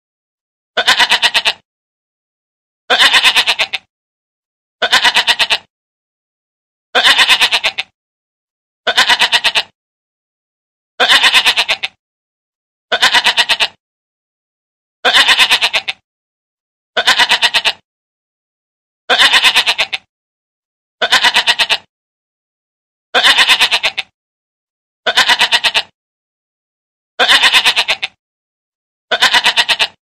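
Goat bleating over and over, one call every two seconds, alternating a longer and a shorter bleat with dead silence between: the same recording looped.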